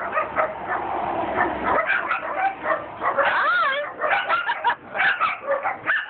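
Amazon parrot chattering and squawking in short broken bursts, with a rising-and-falling whistle-like note about three and a half seconds in.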